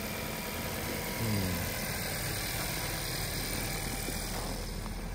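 Honda CR-V engine idling steadily, with a short low falling sound about a second in.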